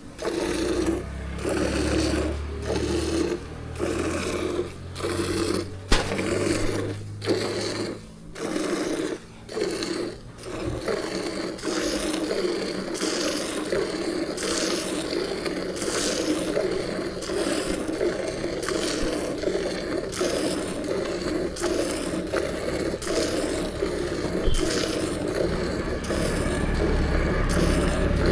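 Water buffalo being milked by hand: streams of milk squirting from the teats in a regular rhythm, about one squirt a second at first, then running together into a steady spray.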